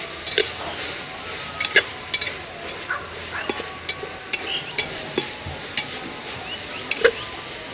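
Mixed vegetables, tomato and spices sizzling in a pressure cooker while being stirred, with scattered clicks of the spoon against the pot.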